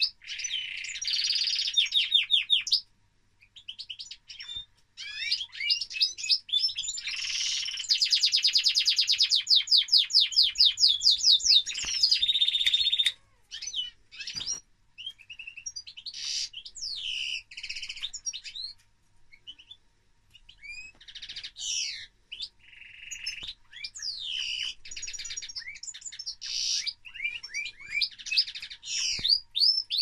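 European goldfinch singing: bursts of rapid twittering and trilled phrases broken by short pauses, with a long, loud run of fast repeated notes from about 8 to 13 seconds in.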